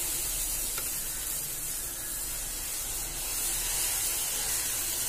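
Dosa batter sizzling on a hot tawa as it is poured and spread round with a steel ladle: a steady hiss.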